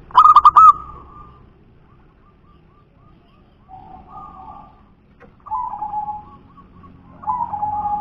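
Zebra dove (perkutut) cooing in short phrases. There is a loud burst of four quick notes at the start, softer coos about four seconds in, and two louder coo phrases in the second half.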